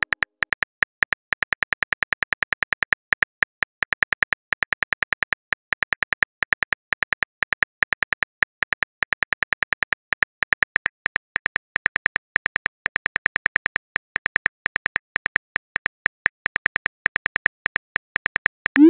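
Phone keyboard typing clicks from a texting app, short sharp taps about five a second, as a message is typed out letter by letter. A short rising swoosh comes right at the end as the message is sent.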